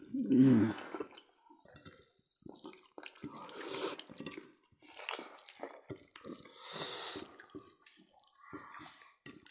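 Wet, close-miked chewing and lip-smacking from people eating with their hands, as a string of small clicks and soft smacks. A brief voice sound comes about half a second in.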